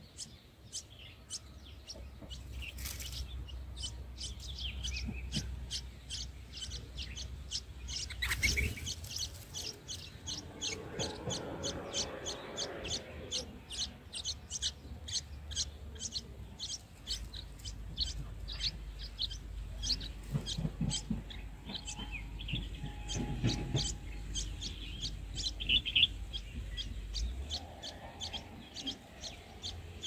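Red-whiskered bulbul nestlings begging in the nest: a fast, steady series of short, high chirps, over a low rumble.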